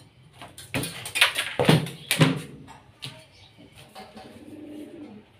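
A stainless-steel machine frame being set down and shifted on a plywood sheet over a tiled floor: several loud knocks and clatters with a metallic ring. A pigeon coos softly near the end.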